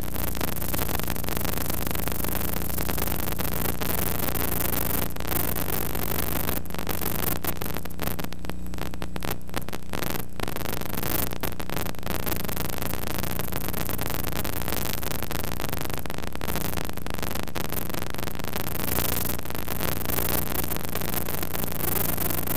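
Steady hiss and static with a low electrical hum underneath: noise on the recording itself, with no sound of the game.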